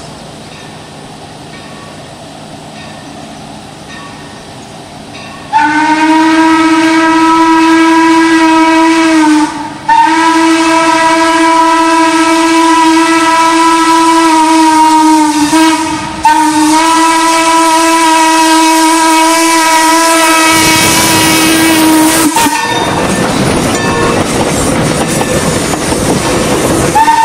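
Ex-Tremont & Gulf #30's steam hooter whistle blowing three long blasts with brief breaks between them as the locomotive approaches. About 20 seconds in, the locomotive and passenger cars roll past with a heavy rumble and wheel clatter on the rails, and near the end the whistle sounds again.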